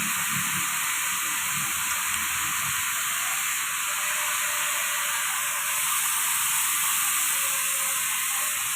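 Steady, even hiss, with faint low muffled sounds in the first few seconds.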